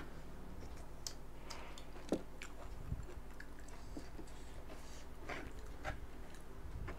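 A person chewing and biting food close to the microphone, with scattered sharp wet mouth clicks, the sharpest a little after two seconds. A steady low hum runs underneath.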